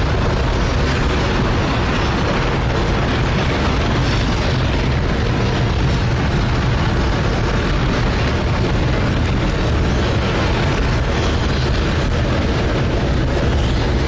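J-2X liquid-hydrogen/liquid-oxygen rocket engine firing on a test stand: a loud, steady rumble of noise, strongest in the deep bass, that does not let up.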